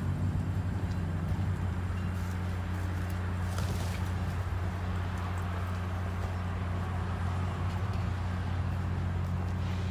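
Standing diesel passenger train idling with a steady low drone. A short hiss comes about three and a half seconds in.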